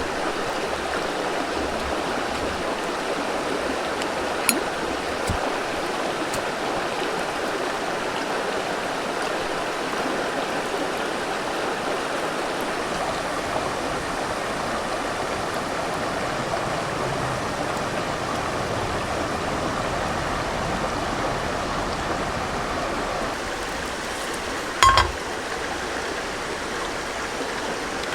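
River running steadily over rocks. A couple of faint clicks in the first few seconds, and a single short knock near the end.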